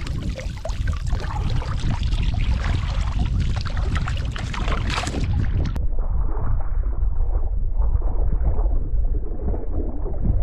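Wind buffeting the microphone in a heavy low rumble, with splashing water in the first half. About halfway through the high end drops away abruptly and only a duller rumble remains.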